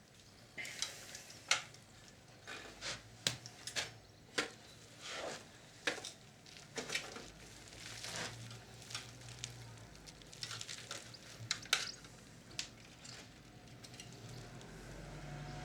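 Scattered small clicks, taps and scrapes of hands handling the internal parts of an opened Sharp VC-573E video cassette recorder, irregular and quiet.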